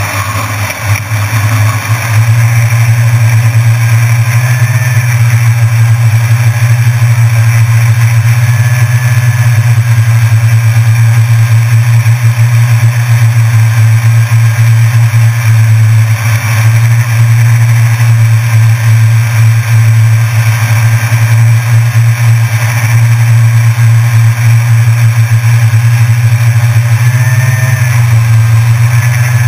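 Multirotor drone's electric motors and propellers buzzing steadily in flight. The sound swells over the first two seconds as the drone lifts off the floor, then holds level.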